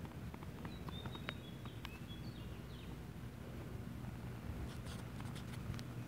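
Small scratches and clicks of fine garden netting being picked and pulled free from a trapped bird's feathers, over a steady low rumble. A few short, high bird chirps come between about one and two and a half seconds in.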